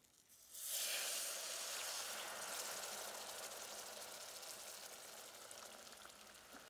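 Hot butter-and-flour roux sizzling as chicken broth is poured in from a ladle through a mesh strainer: a sudden hiss sets in about half a second in and slowly dies away.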